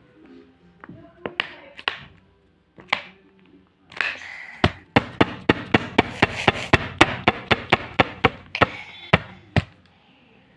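Clear plastic bottle with slime inside being knocked: a few single taps, then a fast run of sharp knocks, about four a second for some five seconds, as the bottle is banged to work the slime out.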